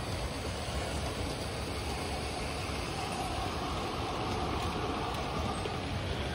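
Garden-scale model train, a diesel locomotive pulling passenger cars, running along an outdoor track with a steady rolling noise.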